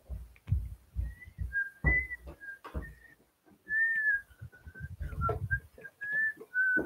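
A person whistling a wandering tune in short, gliding notes, over irregular thumps of footsteps and the phone being handled as it is carried.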